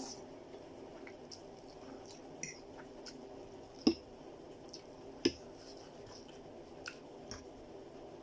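A person eating chow mein noodles up close: soft wet chewing with scattered small clicks, and two sharper clicks near the middle.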